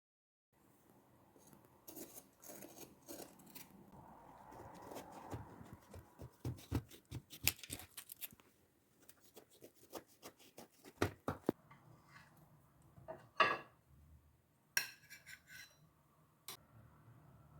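Kitchenware being handled: a run of light clinks, taps and knocks of utensils against dishes, with a short squeak about two-thirds of the way through.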